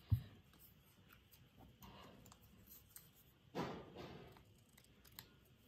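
Small scissors snipping through a strip of white paper: a soft rasping cut a little past halfway, with a few faint ticks. A short low thump comes right at the start.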